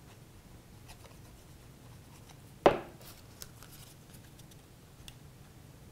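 Faint handling of cardstock pieces being glued together, with small paper ticks and rustles, and one sharp knock a little under halfway through.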